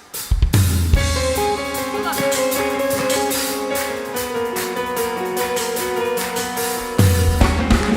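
Live band music begins: guitar playing over held chords, with bass and drums coming in near the end.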